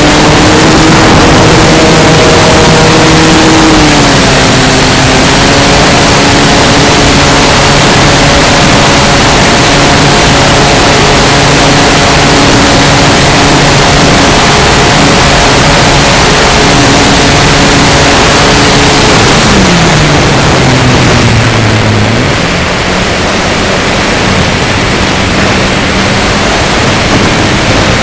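Electric motor and propeller of an RC Carbon-Z Cessna 150 heard from a camera on the plane, under heavy wind rush on the microphone. The motor's pitch steps a little early on, then falls sharply about twenty seconds in as the throttle comes back, and it keeps running at a lower pitch.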